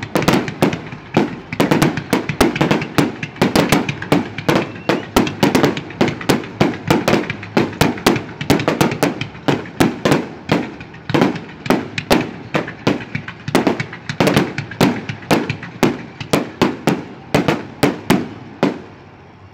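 A rapid barrage of aerial firework shells bursting, several bangs a second, each trailing off briefly; the barrage stops just before the end.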